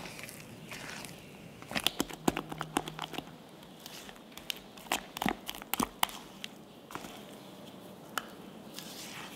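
Spatula mixing thick coffee topping batter in a glass bowl: short scrapes and sharp taps against the glass, in two quick flurries about two and five seconds in, with a few single taps later.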